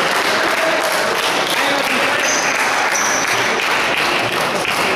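Crowd applauding in a sports hall after a point in a table tennis match, a steady clapping that began just before, with a few voices over it.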